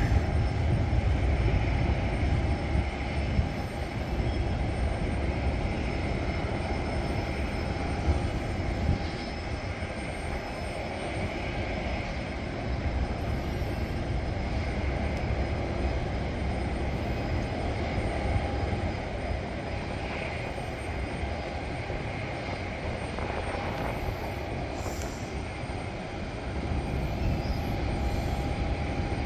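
Steady airport apron noise: the faint, even whine of a distant jet engine over a low rumble of wind on the microphone.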